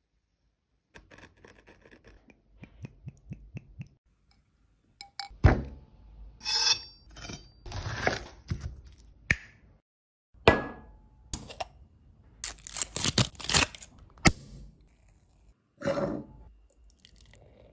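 Food being prepared on a wooden cutting board: a light run of ticks, then a string of loud knife cuts, knocks and scrapes on the board.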